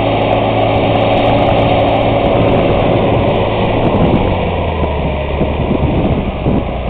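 John Deere 8300 tractor's diesel engine running steadily; about halfway through the engine note drops to a lower pitch as the revs come down.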